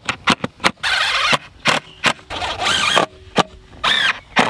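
Cordless drill-driver fastening metal conduit clips to a wooden raised-bed frame: several short bursts of motor whir that rise and fall in pitch, with sharp clicks between them.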